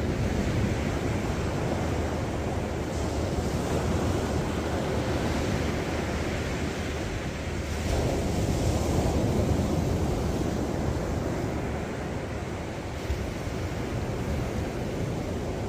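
Ocean surf breaking and washing up the beach, a steady rush that swells louder about eight seconds in, with wind rumbling on the microphone.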